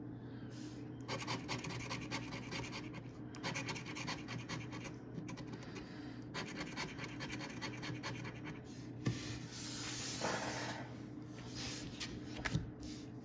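A large coin scraping the latex coating off a scratch-off lottery ticket: several runs of rapid scratching strokes broken by short pauses.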